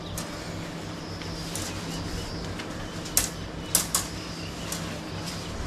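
Tent poles being fitted into the tent's corner holes: a few sharp clicks and knocks, the loudest a little past the middle, among light handling noise.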